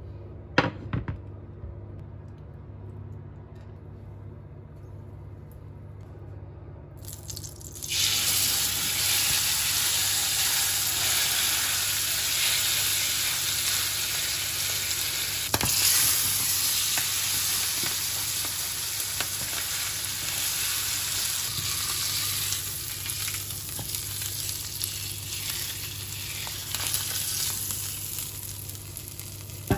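Pork shoulder sizzling in a hot oiled grill pan: a quieter first few seconds with a low hum, then a loud steady sizzle starts about eight seconds in as the meat goes into the pan and keeps on while it browns. An occasional sharp knock of tongs or meat against the pan.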